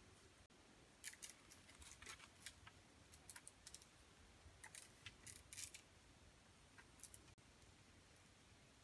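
Faint, irregular crackling and clicking as wooden poles and their lashing are worked where they meet at the top of a pole frame, in scattered clusters that die away after about six seconds.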